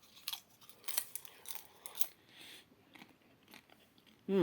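Someone chewing buttery bagged popcorn: a string of irregular crisp crunches.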